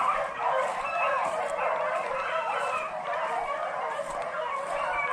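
A pack of beagles baying and yipping, several dogs' voices overlapping without a break.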